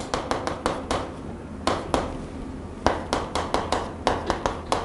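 Chalk tapping and scraping on a blackboard as words are written: quick runs of sharp taps, with two short pauses, the longer one about two seconds in.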